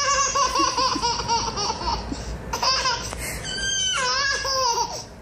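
A baby laughing hard in quick, bouncing peals, then breaking into a higher-pitched squealing laugh that falls in pitch near the end.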